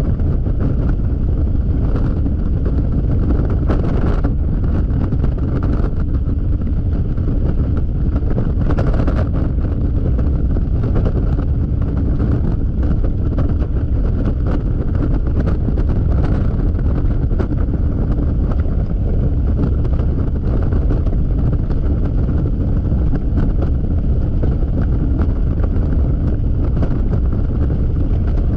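Steady wind roar buffeting the microphone of a Yamaha XMAX scooter riding at highway speed, with the scooter's running and road noise beneath it.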